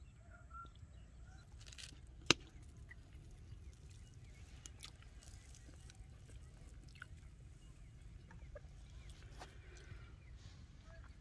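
Faint outdoor ambience with distant chickens clucking now and then over a low steady rumble. A single sharp click about two seconds in is the loudest sound.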